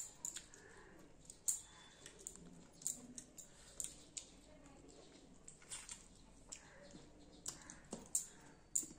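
Close-up eating sounds: wet mouth clicks and lip smacks while chewing rice and fish curry, coming at irregular intervals several times a second.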